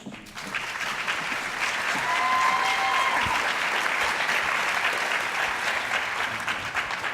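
Audience applauding steadily, with one person's short call rising above the clapping about two seconds in; the clapping dies away near the end.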